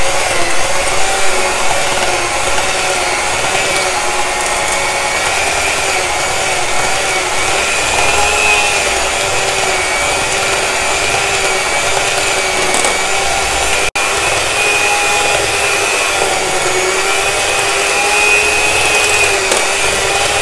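Electric hand mixer running steadily, its beaters whipping thick urad dal batter in a steel bowl to make it fluffy; the motor's whine wavers slightly in pitch as the beaters work through the batter.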